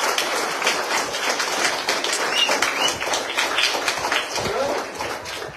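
A crowd of schoolchildren clapping, a dense patter of claps with a few short cries, dying away near the end.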